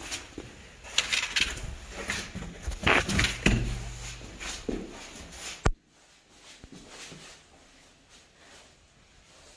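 Scraping, rustling and knocking of the camera and clothing against rock while squeezing through a narrow sandstone hole, with a low rumble on the microphone. It ends in a sharp click about six seconds in, after which only faint rustling remains.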